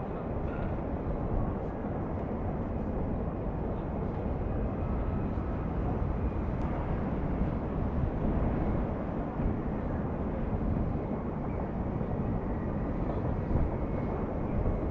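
Steady low rumble of distant trains and city traffic, heard outdoors from a height, with no single sound standing out.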